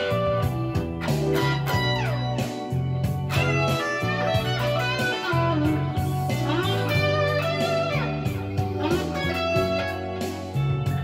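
Stratocaster-style electric guitar playing a lead solo in B minor, single notes with frequent string bends that rise and fall in pitch. Underneath runs a backing track with sustained bass notes that change every second or two.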